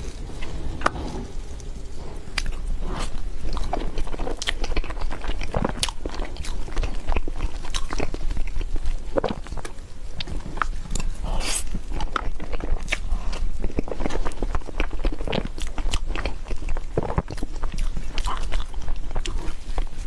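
A person eating a dessert: irregular bites and chewing clicks throughout, over a steady low hum.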